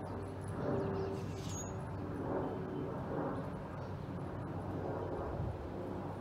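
Jet airliner flying over: a steady engine rumble with a low hum.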